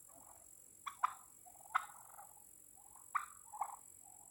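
A flock of domestic turkeys calling on alert: short, sharp calls about once a second, with softer warbling between them.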